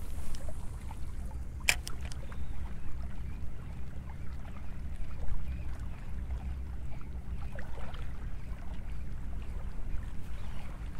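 Steady low wind rumble on the microphone with light water sounds, and one sharp click a little under two seconds in.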